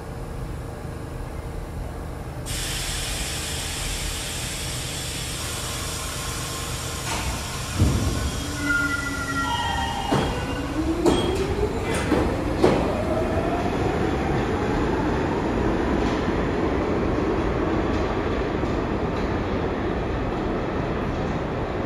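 New York City subway train of R62-series cars moving through an underground station with a steady rumble. It gives a few brief wheel squeals and several loud clanks over the rails midway. Then a motor whine rises steadily in pitch as the train gathers speed.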